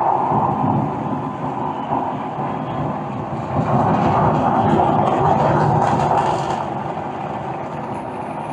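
Recorded launch roar of a SpaceX Starship's Super Heavy booster, 33 engines firing, played back loud through Klipsch ProMedia 2.1 computer speakers with subwoofer: a steady, dense wash of noise.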